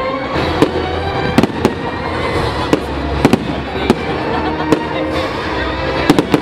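Aerial firework shells bursting: about ten sharp bangs at irregular intervals, a few in quick pairs, over music playing.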